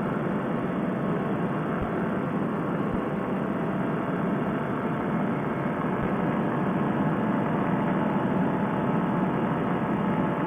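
Steady drone of a paramotor trike's engine in flight, mixed with wind noise.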